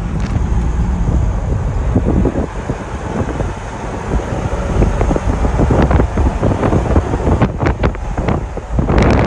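A vehicle driving on a rough gravel road: tyre and road rumble with wind buffeting the microphone, and frequent knocks and rattles from the bumps. A cluster of sharper jolts comes about three-quarters of the way through and another near the end.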